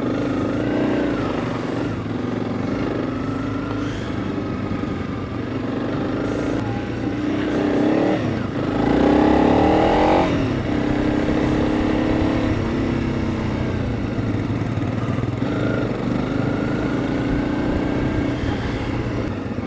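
Motorcycle engine running steadily under way. About eight seconds in it revs up and gets louder for a couple of seconds, then settles back to a steady pull.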